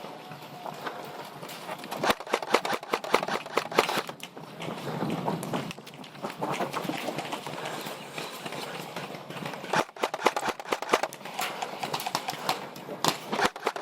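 Footsteps moving quickly over the ground, an irregular run of thumps and rattles that comes in two spells, about two seconds in and again about ten seconds in.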